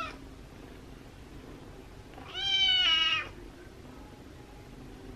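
A young kitten meowing: the end of one call right at the start, then one loud, high-pitched meow lasting about a second, a little over two seconds in.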